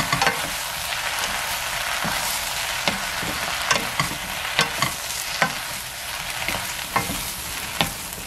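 Sliced shiitake mushrooms and onion sizzling in oil in a nonstick frying pan as they are stir-fried, with irregular clacks of a wooden spatula and chopsticks against the pan.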